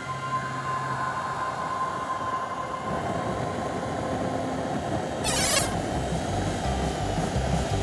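Cartoon sound effects: a steady hum that fades, then a rising rushing noise with a short sharp hiss about five seconds in, after which background music with a steady beat starts.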